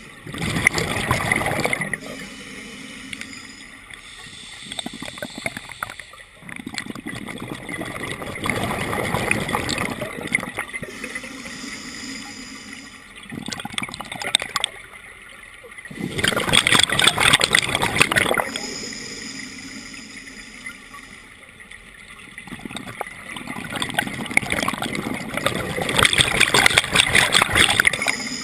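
Scuba diver breathing through a regulator underwater: four loud surges of exhaled bubbles about every eight seconds, with a quieter, steady hiss of the regulator on each inhalation in between.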